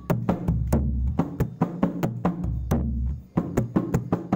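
Balinese kendang, a double-headed barrel drum, struck by hand in its most basic stroke pattern, called satu baris: a quick run of sharp slaps, about four or five a second, with deep open booms twice, about half a second in and again about two and a half seconds in.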